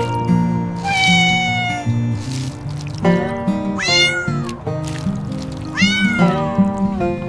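A kitten meowing: two high-pitched meows that rise and fall, about four and six seconds in, after a shorter falling mew about a second in, over background music.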